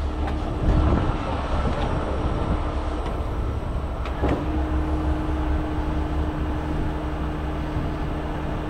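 A heavy tow truck's diesel engine running steadily, with a short knock about four seconds in, after which a steady hum continues over the rumble.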